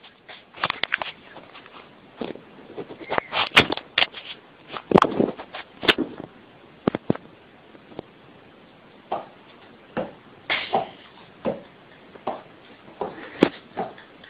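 A cat pawing at a wooden door: irregular knocks and taps, some in quick runs, with pauses between.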